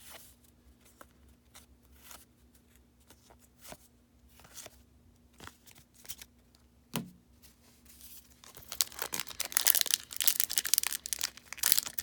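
Soft clicks and taps of trading cards being handled, with one sharper knock about seven seconds in. From about eight and a half seconds a baseball card pack's wrapper is torn open and crinkled, much louder than the handling before it.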